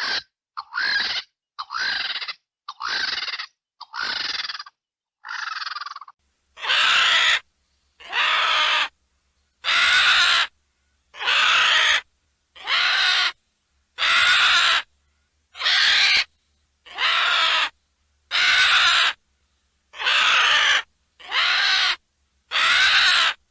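Vulture giving harsh calls over and over, about one a second, each lasting under a second with silent gaps between. The calls are shorter and quieter at first and grow louder about six seconds in.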